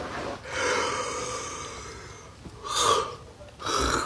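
A person yawning: one long, breathy, voiced yawn that fades away, then two short, sharp breaths near the end.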